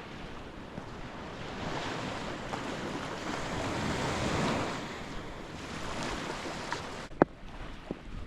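Ocean surf washing onto a sandy beach, a steady rush that swells to a peak about halfway through and then eases. A sharp click comes about seven seconds in.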